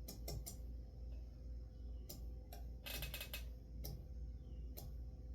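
Irregular sharp clicks and ticks, a few in a quick cluster about three seconds in, from the ceiling fan's blades and blade arms being handled while their alignment is checked, over a steady low hum.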